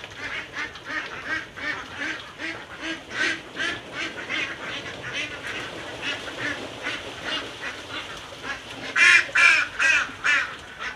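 A flock of domestic laying ducks (itik) quacking continually, several calls a second, with a louder run of quacks about nine seconds in.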